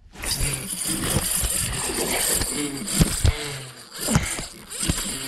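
Wind buffeting an action camera's microphone in a loud steady rush, with several sharp knocks as a hand bumps the camera.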